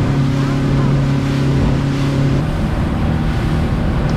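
Outboard motor driving a boat at speed: a steady engine hum under wind rushing over the microphone and water hissing off the hull and wake. The hum weakens about halfway through.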